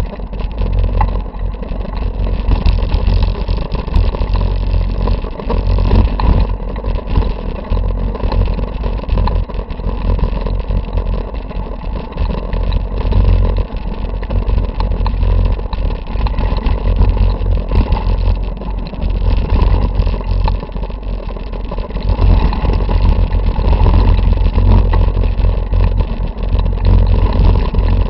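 Mountain bike rolling over a rocky dirt trail, heard through a handlebar-mounted camera: a loud, constant rumble of the tyres on dirt and gravel, with the bike and mount vibrating and rattling and many small clicks and knocks.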